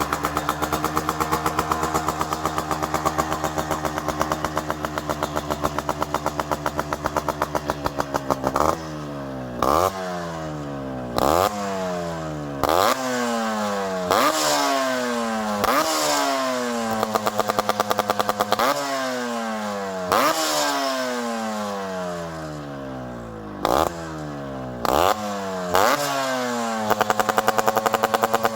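Yamaha RX100's air-cooled two-stroke single-cylinder engine revved through its exhaust. It is held at high revs for about eight seconds, then given about a dozen quick throttle blips, the revs falling away after each. Near the end it is held high again.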